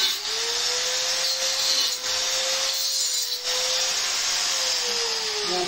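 A small motor running steadily, a whine over a hiss, its pitch sagging near the end.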